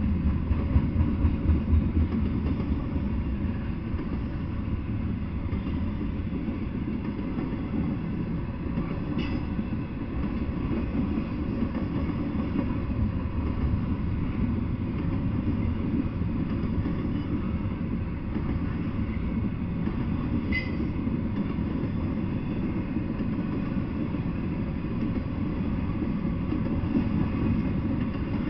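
Intermodal freight train of double-stack container cars and trailer-carrying cars passing at steady speed: a continuous low rumble of wheels on rail. Two brief high squeaks come through, about nine and twenty seconds in.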